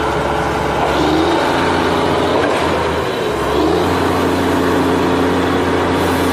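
Loaded ten-wheel truck's diesel engine running, heard from inside the cab, its pitch shifting about a second in and again just under four seconds in as the revs change.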